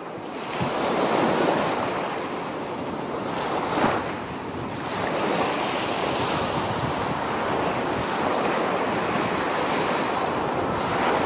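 Sea surf washing and breaking on the shore, with wind buffeting the microphone. There is a steady rush that swells about a second in and rises to a brief sharp peak near four seconds.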